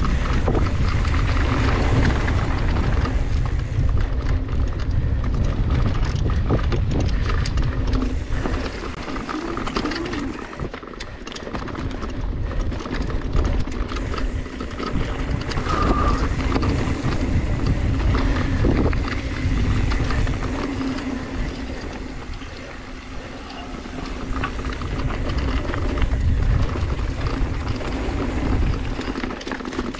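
Mountain bike riding fast down a dry dirt trail: wind buffeting the camera microphone over the tyres' rumble on the loose dirt, with frequent clicks and rattles from the bike over bumps. It eases off briefly twice.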